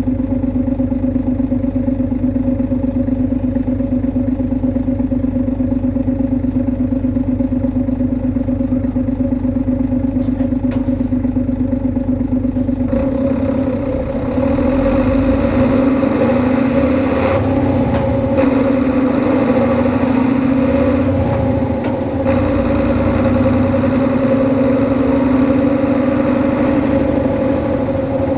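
Hino HU2ML Blue Ribbon bus engine with a strong humming drone: the unusual engine noise of this prototype, which the uploader puts down to its rearranged engine layout. It runs steadily with a regular pulse at first, then about halfway through the bus pulls away. The sound gets louder and wavers in pitch, with brief drops around the middle and again later.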